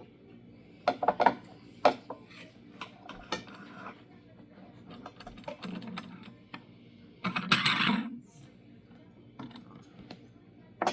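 Light metallic clicks and clatters in scattered bursts: a quick cluster about a second in, and a longer rattle near the end.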